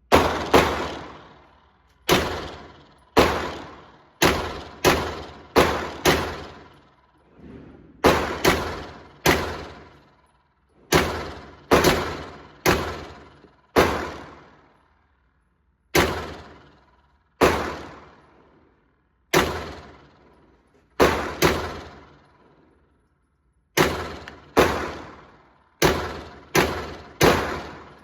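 9mm Glock 17L pistol firing single shots, about thirty in all at an uneven pace, some in quick pairs and short strings, each shot ringing out briefly after the crack.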